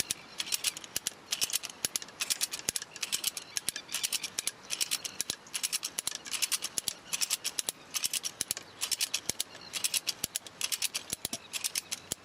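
Strainrite XT1 ratchet wire strainer being cranked. The pawl clicks rapidly over the ratchet teeth in repeated bursts, about one burst a second, as the wire winds onto the spool and the fence wire is tensioned.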